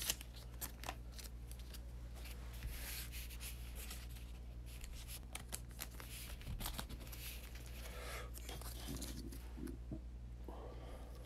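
Faint handling noise: scattered clicks and brief rustles, over a steady low hum.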